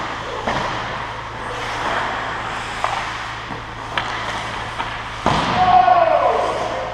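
Ice hockey play in a rink: a steady wash of skates on ice with sharp clicks of sticks and puck. A loud thump comes a little past five seconds in, followed by a drawn-out call falling in pitch.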